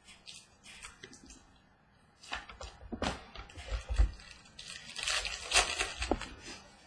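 Trading cards and their pack being handled, with scattered rustles and light knocks and a denser stretch of rustling near the end.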